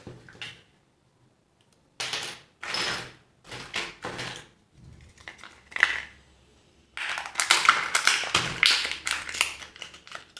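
Plastic surprise-egg packets being opened by hand: crinkling and tearing of plastic wrapping in short bursts after a brief pause, becoming a dense continuous crinkling about seven seconds in.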